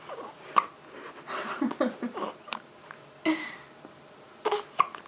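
A child hiccupping several times, each one a short sharp catch of the breath, with brief small vocal sounds between them.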